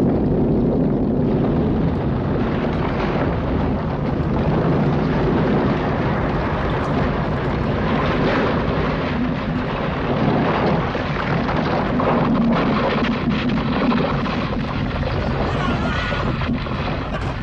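Film sound effects of a major earthquake: a continuous deep rumble under crashing, falling masonry and debris as buildings break up, with the crashes thickest in the second half.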